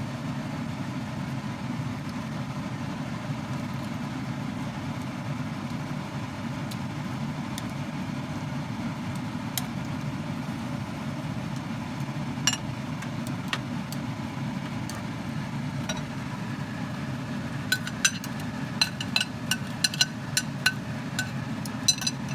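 Pork chops cooking with onion in sauce in a frying pan over a steady low kitchen hum. Light, sharp clicks of a utensil against the pan come once about halfway and then in a quick scatter over the last few seconds.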